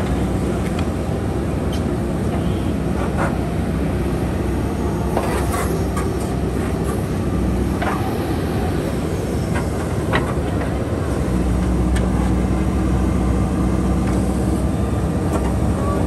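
JCB 3DX backhoe loader's diesel engine running steadily as the backhoe works its bucket through gravel and sand, with scattered short clanks and knocks. The engine note gets louder about eleven seconds in.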